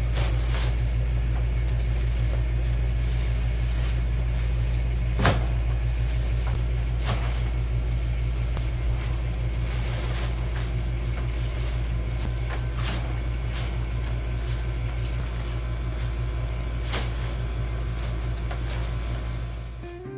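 Steady low rumble of a running motor vehicle, with light scattered knocks and rattles and one sharper knock about five seconds in; it drops away just before the end.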